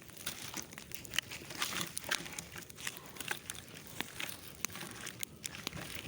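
Three-log campfire crackling, with irregular sharp snaps and pops from the burning logs over a faint hiss.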